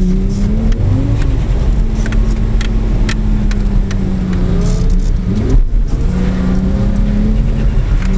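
Car engine heard from inside the cabin, held high while the car drifts. Its pitch rises and falls as the throttle is worked. It drops off briefly about five and a half seconds in, then picks up again, with short clicks scattered over it.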